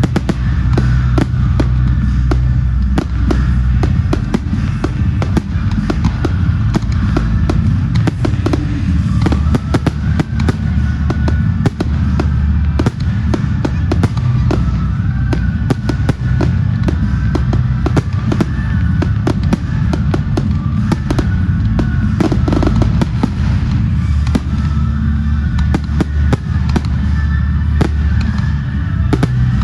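Fireworks going off in a dense, continuous stream of bangs and crackles, with music playing underneath.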